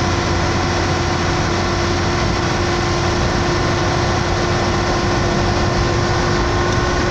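Volkswagen Saveiro's dashboard tachometer giving a loud, steady whine over the engine and road noise inside the cab at highway speed. The noise appears above about 60 km/h and the needle goes erratic, which the owner takes for an electrical fault in the tachometer.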